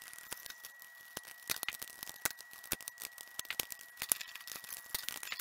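Small, irregular clicks and scrapes of a screwdriver, terminal screws and stiff copper wires as the wires are fastened to a GFCI outlet's terminal screws.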